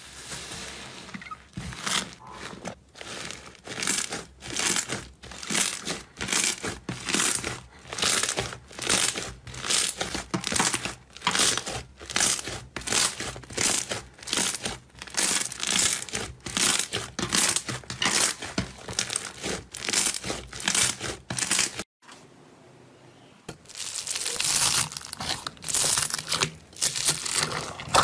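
Hands pressing and squeezing slime, each press a sticky, crackling squish, in a steady rhythm of a little more than one a second. A short pause after about twenty seconds, then denser, continuous crackling.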